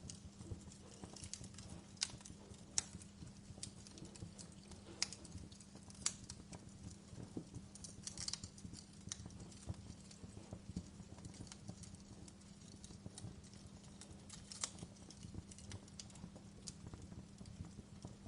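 Fireplace fire crackling: irregular sharp pops and snaps, a few louder than the rest, over a steady low rumble.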